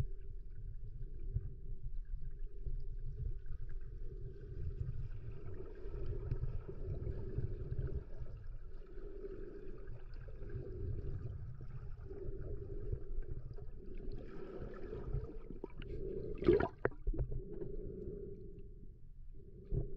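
Muffled underwater sound picked up by a camera below the surface of a river: a low, steady rumble of moving water with a fainter hum over it, and one sharp knock about three quarters of the way through.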